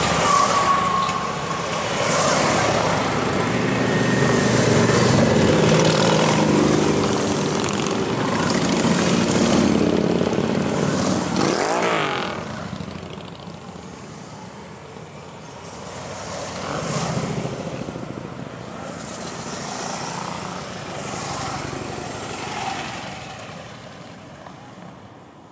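A line of Harley-Davidson V-twin motorcycles riding past, loud and dense for the first twelve seconds with a quick rise and fall in pitch near the end of that stretch. Then it is quieter, with single bikes swelling past every few seconds and fading out at the very end.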